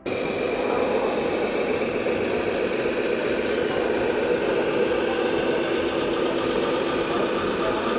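Engine idling steadily, an even running sound with a faint steady whine over it.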